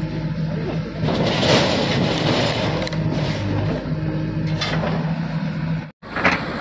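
JCB backhoe loader's diesel engine running steadily, with a louder noisy clatter from about one to three seconds in as its bucket tips dismantled sawmill parts into a tractor trolley. The sound cuts out briefly near the end.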